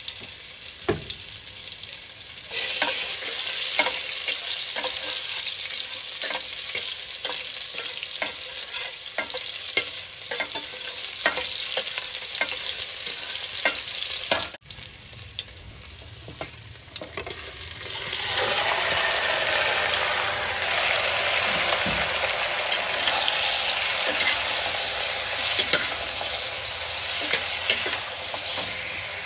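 Chopped red onion and garlic sizzling in oil in a stainless steel pot, with a metal spatula scraping and tapping against the pot as it stirs. After a quieter stretch just past the middle, a louder sizzle as raw chicken pieces fry and are stirred in the pot.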